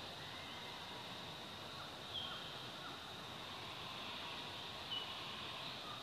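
Steady outdoor woodland ambience with a continuous high-pitched drone, broken by two short high chirps, about two seconds in and again near the end.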